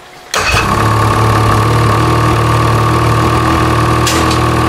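A 2014 Ski-Doo Rev XM snowmobile's Rotax engine, electric-started on a newly fitted Earthx lithium battery, fires up suddenly about a third of a second in and idles steadily.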